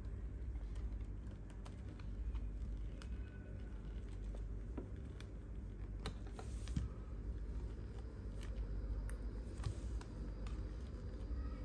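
Light, irregular clicks and scrapes of tools prying the glued, cracked screen away from a Google Pixel 6 Pro's frame, over a steady low hum.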